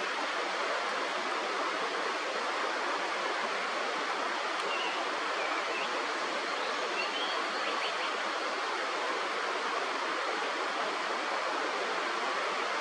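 Steady rush of flowing river water, even and unbroken. A few faint, short high-pitched sounds come about five to seven seconds in.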